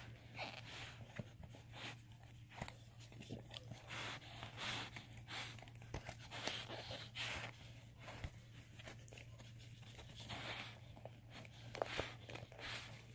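A dog chewing and tearing at a dog toy, with irregular crunching and ripping sounds as she works at a hole in it. A steady low hum runs underneath.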